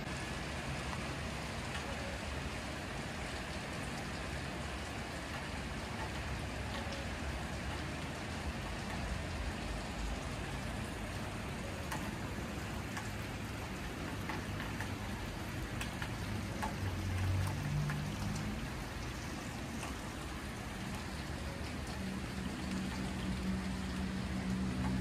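Steady hiss of light rain with scattered drips. A low engine-like hum comes in briefly about two-thirds of the way through and again near the end.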